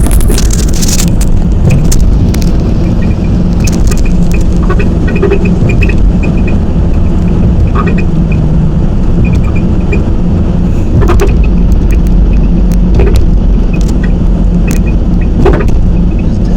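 Car running with a loud, steady low rumble, with light ticks that come and go throughout and a few sharp clicks.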